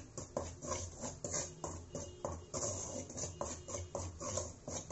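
Perforated metal ladle scraping and stirring dry rice flour around a hammered aluminium kadai, in an even run of strokes about three a second: the flour being dry-roasted.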